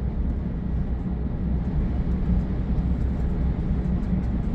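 Scania truck's diesel engine and tyre noise heard from inside the cab: a steady low drone while cruising at highway speed, about 89 km/h, with the accelerator held down.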